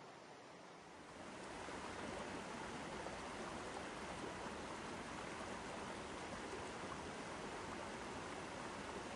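Steady rushing of falling water, growing louder about a second in and then holding even.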